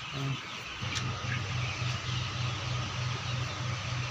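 A low mechanical hum that pulses about three times a second, with a brood of chicks peeping faintly above it.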